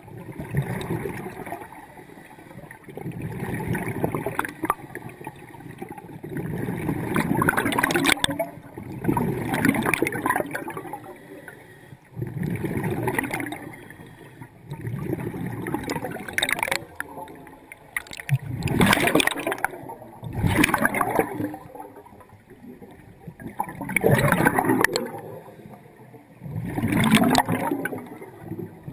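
Scuba diver's regulator breathing heard underwater: exhaled bubbles gurgle in repeated surges about every three seconds, with quieter gaps between breaths.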